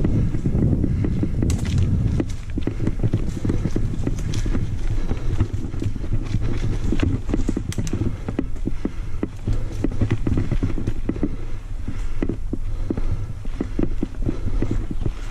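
Mountain bike rolling over a dirt singletrack: a steady low rumble with many quick rattling clicks and knocks as the wheels go over bumps, roots and stones.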